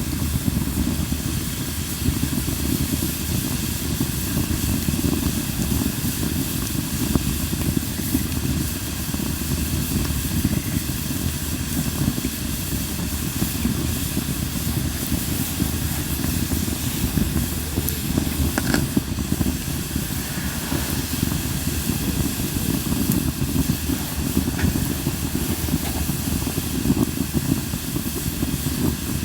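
Linden-wood campfire burning in a fire-pit disc: a steady hissing and rushing of the flames, with a few faint pops from the wood.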